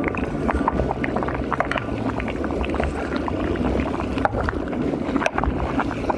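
Pot of water at a rolling boil with spaghetti in it, bubbling and popping with many small clicks over a low rumble, while a ladle stirs the spaghetti.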